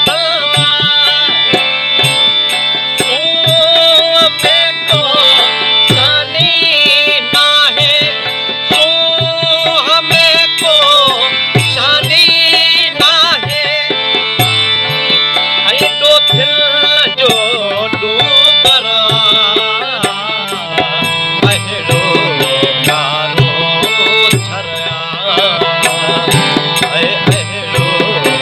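A man singing a Sindhi song to his own harmonium, with a steady drum beat underneath.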